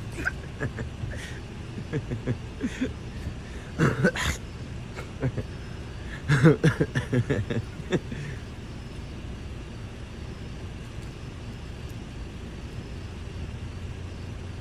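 Steady low hum of a car engine idling, with short muffled bursts of a man's voice several times in the first half.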